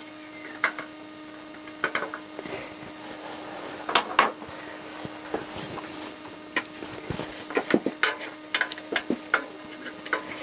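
Scattered metallic clicks and taps from an engine mounting bolt being handled and turned in by hand through a Honda CBR1000F frame into the engine, loudest around four seconds in and again near eight seconds. A faint steady hum underneath.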